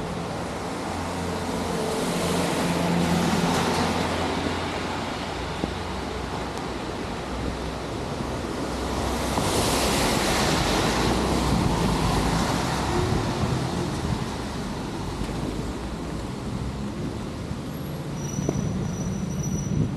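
Cars passing on a wet street: tyre hiss on the rain-soaked road swells and fades twice, over a steady background of rain and low wind rumble.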